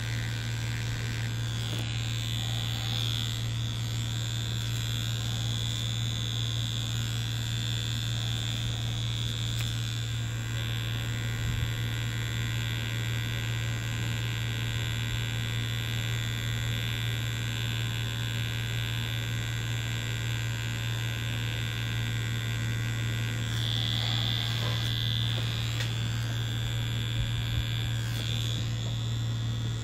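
Mummy Anubis tattoo machine buzzing steadily, driving the needle cartridge into fake skin. A higher-pitched edge comes and goes over the low buzz.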